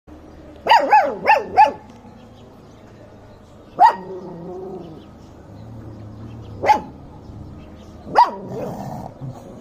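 Puppies yapping: a quick run of four short, high yaps about a second in, then three single yaps a few seconds apart.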